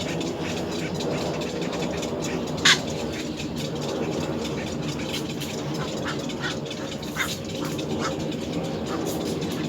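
Little egret chicks giving short, sharp calls at the nest, the loudest about two and a half seconds in and a scatter more near the middle, over a steady low rumble.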